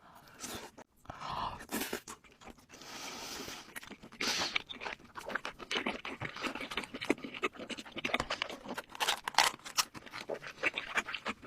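Close-miked mukbang eating sounds: chewing and crunching with many small wet mouth clicks, getting busier about four seconds in.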